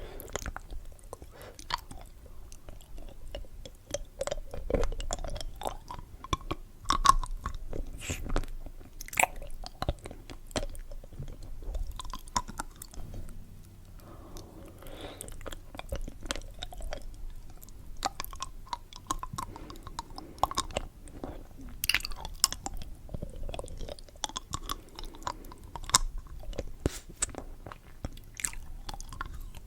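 Close-miked chewing and crunching of candy in the mouth: irregular crisp crunches and sharp mouth clicks, the loudest crunch about seven seconds in.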